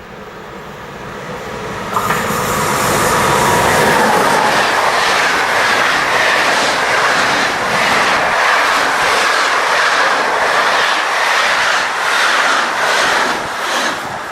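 A train approaching and then passing close by, its wheels clattering over the rail joints in a steady, repeating rhythm; the sound swells over the first two seconds, comes in loudly and suddenly as it reaches the spot, and eases off near the end.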